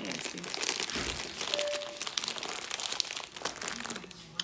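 Crinkly plastic snack bag rustling and crackling as it is handled in the hands, in irregular bursts.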